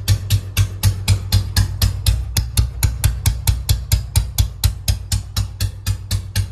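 Old Royal Enfield Bullet's single-cylinder four-stroke engine idling, its exhaust giving an even, firecracker-like beat about five times a second. Its cam setting has just been adjusted by a mechanic.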